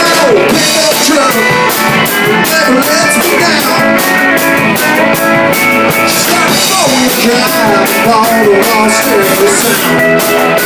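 Live country band playing a honky-tonk rock song: twangy electric guitar, pedal steel guitar with sliding notes, and bass over a steady beat.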